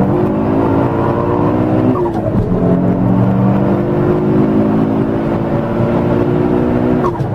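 Turbocharged car engine pulling hard under acceleration, its pitch climbing steadily; the pitch drops sharply about two seconds in and again near the end, as at gear changes.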